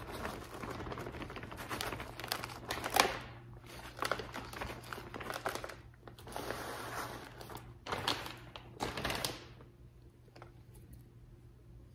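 Clear plastic bag of potting soil crinkling as soil is poured out of it into a plant pot, in several spells, dying away about three-quarters of the way in, leaving a few faint ticks.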